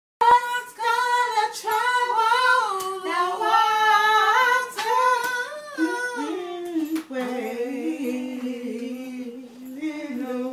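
A woman singing with no accompaniment, holding and sliding between high notes, her voice dropping to a lower pitch about seven seconds in. A few sharp knocks come through the singing.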